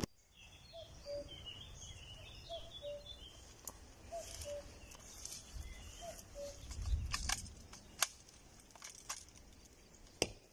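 Birds calling in open countryside: a repeated low two-note call about every second and a half, and higher chirping in the first few seconds. A low rumble swells around the middle, and a few sharp clicks come in the second half.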